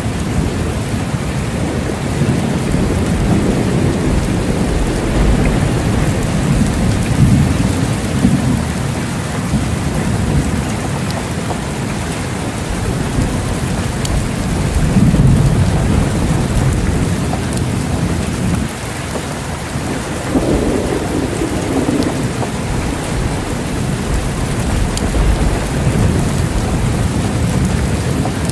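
Steady heavy rain with thunder rumbling low in the background, swelling several times, most strongly in the middle and about two-thirds of the way through.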